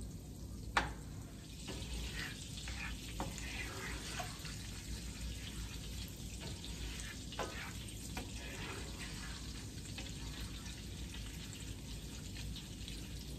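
Unsalted butter sizzling steadily as it foams and browns in a nonstick skillet while it is stirred, with a few sharp clicks.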